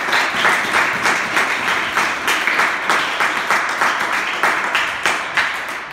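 An audience applauding: dense, steady clapping that fades away near the end.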